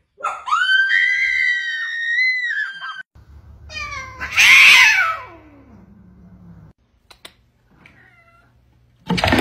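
Cats: a long, high meow that rises and then holds, then a harsh hiss-like yowl that slides down into a low growl. Near the end comes a short, loud burst of noise.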